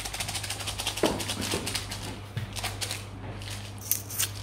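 A Rottweiler puppy moving about on a wooden plank floor, making a quick, irregular run of ticks and scuffs from its claws and paws, over a steady low hum.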